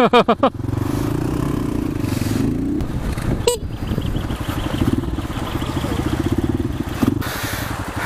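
Small off-road motorcycle's engine running steadily while riding a rough riverside trail, with one sharp knock about three and a half seconds in.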